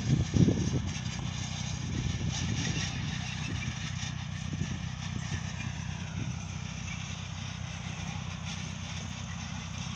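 Farm tractor engines running steadily at work, a low even hum, with a loud low thump about half a second in.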